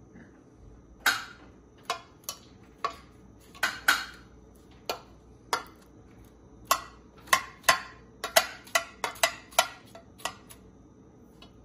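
A metal fork tapping and scraping against a metal loaf pan while spreading ketchup in the bottom: a string of sharp, irregular clinks that come faster in the second half.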